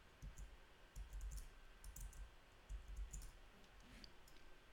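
Faint clicking of a computer mouse, with a few soft low thumps, over quiet room tone.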